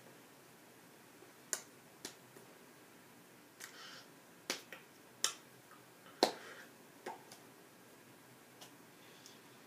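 Irregular sharp clicks and taps from a man's hands as he gestures, about ten spread over several seconds, the loudest about five and six seconds in, with brief rustles of clothing.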